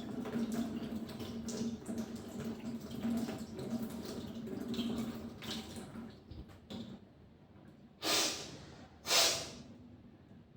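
Salt water from a jal neti pour running out of the nose and splashing and dripping into a basin. Then come two sharp, forceful blows of air out through the nose, about a second apart, to clear the water from the nostrils.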